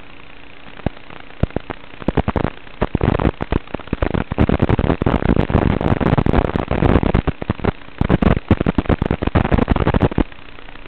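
Crackling static from an analog FPV video link as the signal breaks up: steady hiss under dense, irregular pops and crackles. The crackling thickens about two seconds in and eases off near the end.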